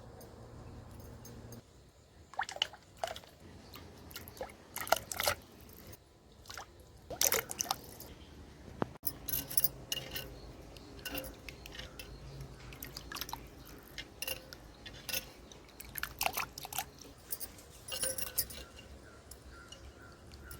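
Glassware and kitchen utensils clinking and tapping in a string of sharp, irregular strikes, with some handling of liquid.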